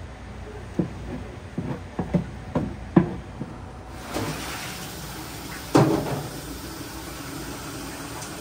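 Cookware being handled: a run of about six light knocks and clanks as a large aluminium pot lid is worked, then one louder clank with a short ring.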